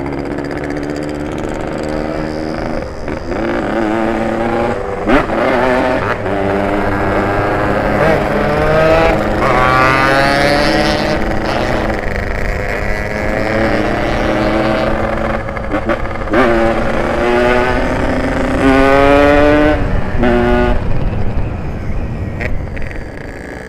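Ported Yamaha RX-King two-stroke single-cylinder engine revving hard while riding. Its pitch climbs again and again as it accelerates, then drops back between gear changes.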